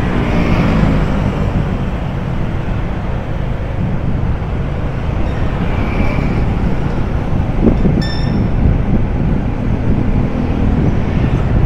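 Steady city street traffic noise, with vehicle engines running and a low wind rumble on the microphone. A brief high-pitched beep sounds about eight seconds in.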